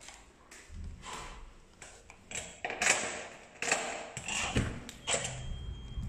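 A door being opened: its lever handle and latch clicking and rattling, with several sharp knocks, the loudest about three seconds in, over a low rumble.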